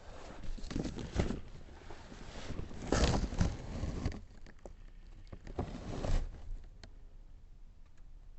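Rummaging through boxes and parts: shifting, rustling, scraping and knocks in irregular bursts, the loudest cluster about three seconds in.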